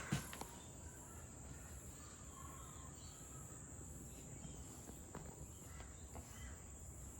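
Faint outdoor ambience of insects: a steady high-pitched drone with a slow pulsing trill above it. A faint knock comes just after the start.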